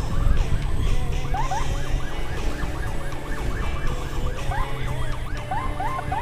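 Emergency siren sounding a fast yelp, its pitch sweeping up over and over several times a second, over the low rumble of a moving motorcycle and wind.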